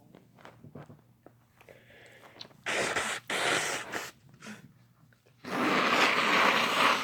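A person sneezing: a short noisy burst, broken once, about three seconds in, then a longer, louder one near the end.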